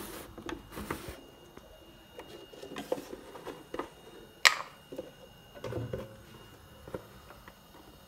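Kitchen handling noises: two brief rustles in the first second, then scattered light clicks and knocks, the sharpest a single click about four and a half seconds in.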